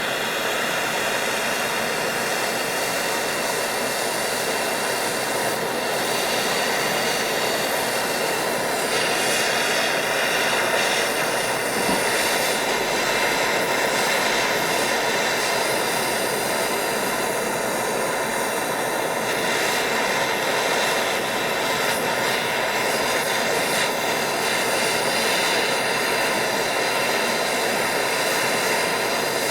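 Blowtorch flame heating a knife blade, a loud steady rushing roar that holds without change.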